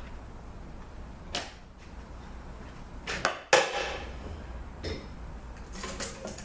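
Metal tools and transmission parts clicking and clanking on a workbench during a teardown: a few light clicks, then a sharp clank about three and a half seconds in that rings briefly, and more handling near the end, over a steady low hum.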